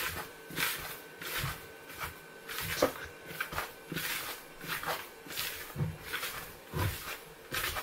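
A hand stirring dry spelt and hemp flour with salt in a plastic mixing bowl: repeated scraping, swishing strokes, about two or three a second.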